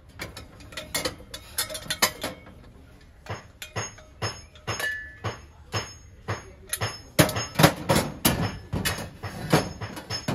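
Brass kitchenware clinking and clanking as pieces are handled and set down against each other: a quick, irregular run of metallic knocks, some ringing briefly, busiest in the second half.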